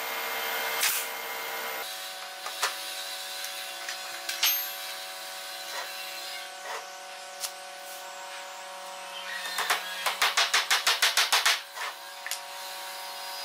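A hammer tapping small nails into a wooden frame, in a fast even run of about seven strikes a second for roughly two seconds, after a few scattered clicks of nails being handled.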